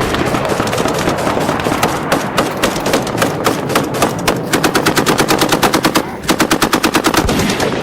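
Rapid automatic gunfire: a dense din of overlapping shots, then long strings of evenly spaced shots at about ten a second, with a brief break about six seconds in.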